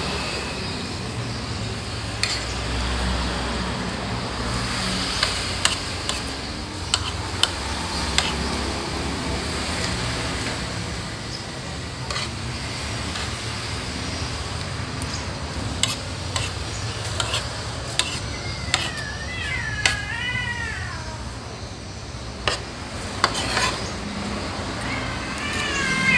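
Metal spoon clinking and scraping on a ceramic plate during a meal, with sharp clicks scattered every second or so. A wavering high-pitched call sounds about two-thirds of the way through and again at the very end.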